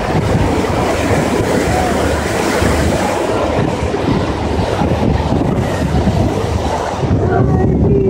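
Wind buffeting the microphone on the deck of a moving boat, over a steady low rumble from the vessel and the water.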